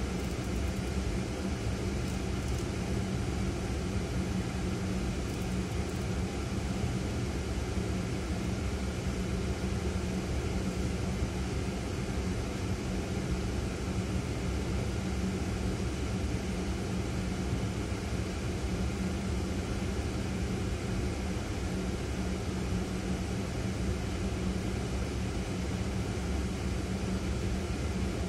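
Steady low hum and road noise inside a Ford Fiesta's cabin as it idles in traffic, an even drone with no changes.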